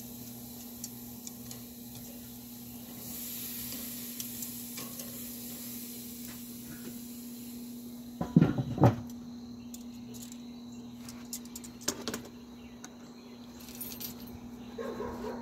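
Rib eye steaks sizzling as they sear over hot charcoal on a kettle grill. About eight seconds in, the steel lid is set down on the grill with two clanks, and the sizzle is muffled after that.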